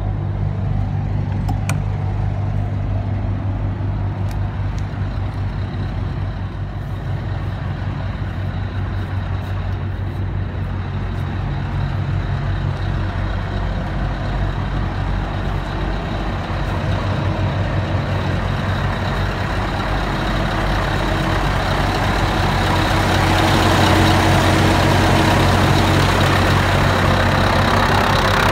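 Scania lorry's diesel engine idling steadily, with a steady high whine over it, growing louder over the last few seconds.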